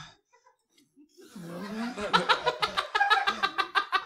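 Audience laughing: after a short hush it breaks out about a second in and swells into loud, pulsing laughter from many people.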